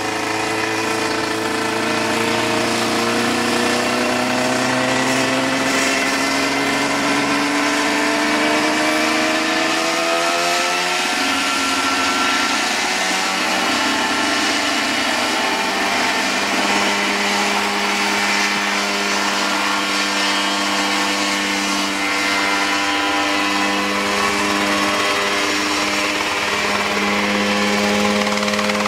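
Mosquito Air ultralight helicopter's two-stroke engine running up, its pitch rising steadily for about the first ten seconds and then holding steady. A lower steady tone joins about halfway through as the helicopter comes off its trailer into a low hover.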